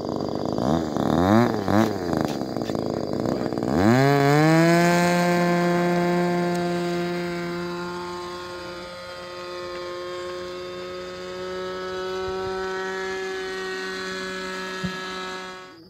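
Two-stroke NGH GT9 Pro 9cc gasoline engine on a radio-control trainer plane, swinging an APC 12.25x3.75 propeller. Its revs rise and fall for a few seconds, then about four seconds in it climbs sharply to full throttle for the takeoff and holds a steady, high-pitched drone that slowly fades as the plane climbs away.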